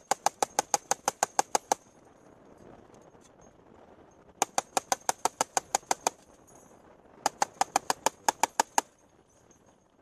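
Turret-mounted heavy machine gun firing three bursts of about a dozen rounds each, at about seven shots a second, with short pauses between the bursts.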